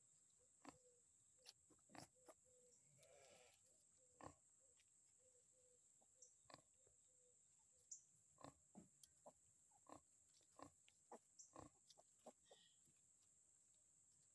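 Faint, scattered short grunts and soft noises from a sow and her small piglets, over a steady faint high hiss.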